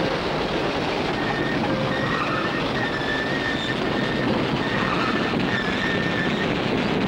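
Old runaway bus rattling and rumbling along at speed, with short recurring high squeals from its wheels.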